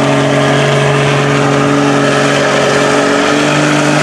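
Built Cummins turbo-diesel in a Dodge Ram mud truck running at high, steady revs under heavy load as it pulls through a mud pit; the pitch steps up slightly about three seconds in.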